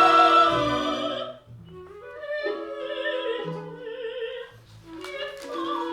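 Operatic singing with vibrato over orchestral accompaniment; a loud held phrase ends about a second and a half in, and quieter phrases follow.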